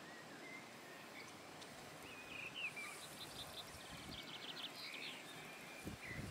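Faint birdsong over a soft outdoor hiss: short whistled chirps and a quick rattling trill about halfway through, with a few soft low bumps near the end.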